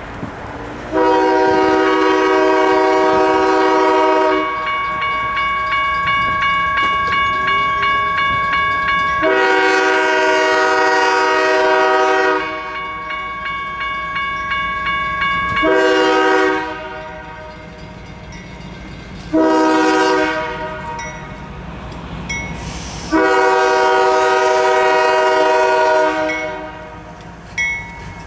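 CSX ES44DC diesel locomotive's air horn sounding five blasts as the ore train approaches: two long blasts, two short ones, then a long one. Between blasts the train's running noise continues.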